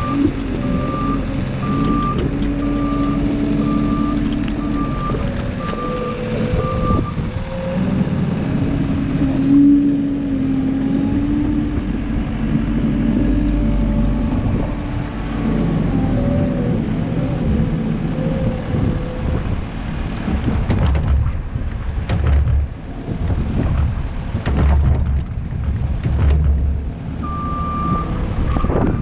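A heavy vehicle's engine running and changing pace, with a backup alarm beeping steadily while it reverses for the first several seconds and again near the end.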